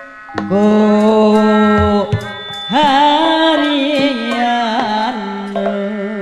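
A female sinden singing long, ornamented held notes of a Sundanese jaipongan song, her pitch wavering and sliding, with music behind and a few drum strokes near the end.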